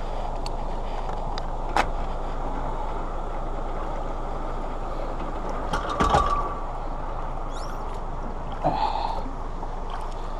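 Metal hook and chain on a boat trailer clinking and knocking as they are handled to hook onto the bow of a small aluminium boat, with sharp knocks about 2 and 6 seconds in and a short rattle about 9 seconds in, over a steady noisy background.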